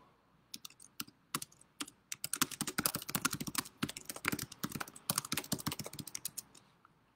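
Typing on a computer keyboard: a few scattered keystrokes, then a quick run of key clicks for about four seconds that stops shortly before the end.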